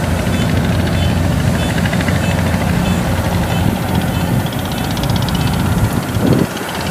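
Kubota DC-93 crawler combine harvester's diesel engine running steadily as the machine works through deep mud. A fast, light clicking joins in for a couple of seconds past the middle.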